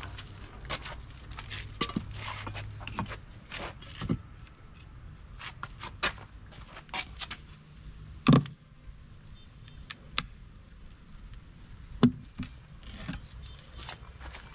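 A steel rebar lever clinking and scraping against a wooden post and the mold rim as the inner mold of a cast concrete planter is pried loose, with many small clicks and two sharp knocks about eight and twelve seconds in.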